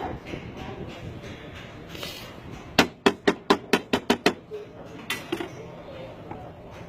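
Hammer blows on metal: a quick run of about nine sharp strikes, then one more a second later.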